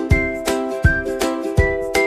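Upbeat background music with a steady beat and a whistled melody over plucked strings.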